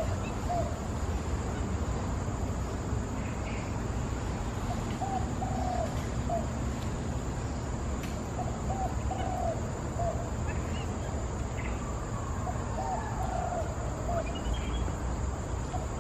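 A dove cooing: a phrase of three or four short, low notes repeated about every three to four seconds. Fainter, higher bird chirps and a steady high hiss run behind it.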